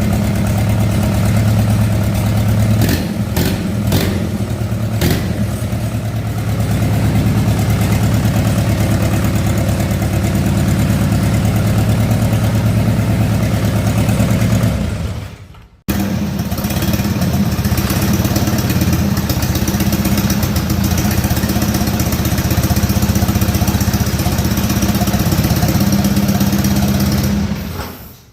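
Freshly overhauled Mitsubishi 4D31 four-cylinder diesel engine running steadily, with a few sharp clicks a few seconds in. It winds down to a stop about halfway, runs again a second later, and winds down again near the end.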